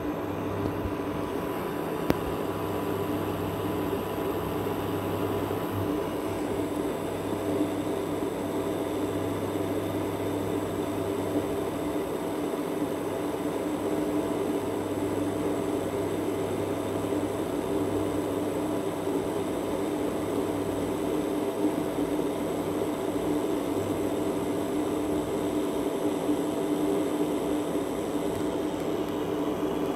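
Ailipu ALP-12 induction cooktop running under a stainless steel kettle of water: a steady hum of its cooling fan and coil with several fixed tones. A single click about two seconds in.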